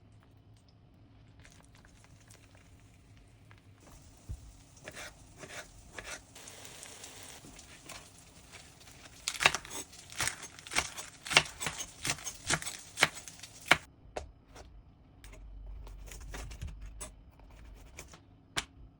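Kitchen food-preparation noises: a run of sharp taps and knocks mixed with crinkling and tearing, densest in the middle, then a low rumble with a few more taps near the end.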